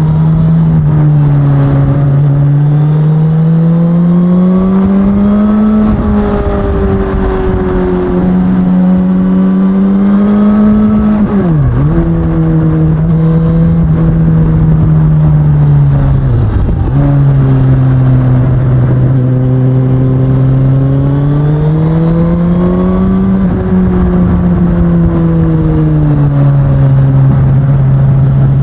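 Stock 2019 Suzuki Katana's inline-four engine and exhaust running under way, its pitch rising and falling slowly with the throttle. The pitch drops sharply and briefly twice, about 12 and 17 seconds in.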